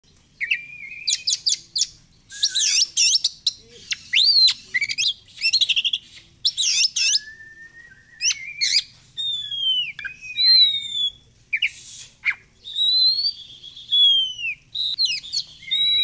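Oriental magpie-robin singing a loud, varied song of clear whistles, slurred rising and falling notes and rapid trills, delivered in quick phrases with short pauses between them.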